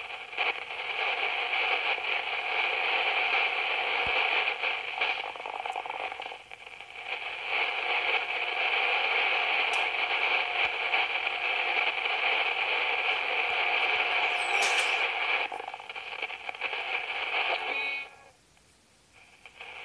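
Shortwave AM receiver static and hiss from the Alinco DX-SR8T transceiver as the dial is tuned across the band around 7.4 MHz, dipping briefly twice. It drops out to near silence near the end.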